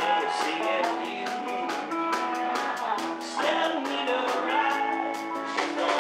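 Rock band playing live: strummed electric guitars, bass and drums with a steady cymbal beat, and a man singing lead.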